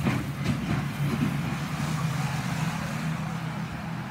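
Engines of several saloon stock cars running together as they race round the track, the drone slowly fading as the pack moves away.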